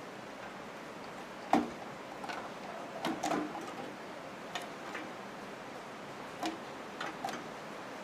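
Irregular light clicks and knocks of hands working on a desktop PC's power supply and its cables, over a steady faint hiss. The sharpest knock comes about one and a half seconds in, with a small cluster of clicks near the middle.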